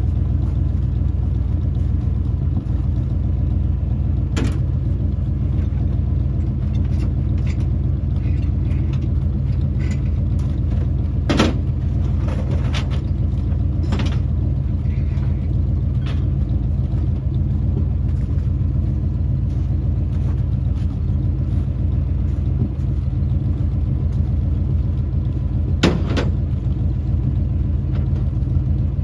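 1968 Dodge D300 tow truck's engine running steadily at an even speed, with four sharp knocks or clanks over it, the loudest about eleven seconds in and another near the end.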